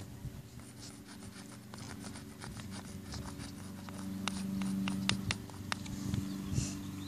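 Sidewalk chalk scratching and rubbing on asphalt as a drawing is coloured in, a quick run of short scratchy strokes. A low steady hum runs underneath and swells about four seconds in.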